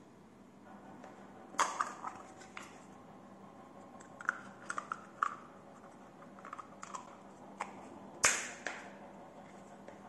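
Hard plastic clicks and taps as a coiled charging cable is pressed into a small plastic Apple Watch charger holder and its cover is fitted on, with one loudest snap about eight seconds in.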